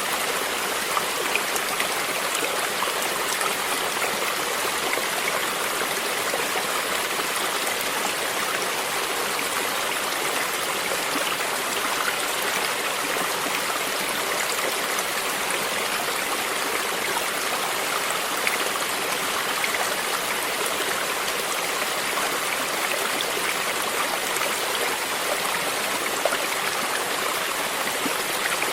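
Stream water flowing and splashing steadily, an even rushing with small droplet ticks scattered through it.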